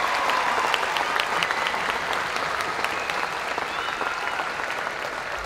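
Large audience applauding, the applause slowly dying down.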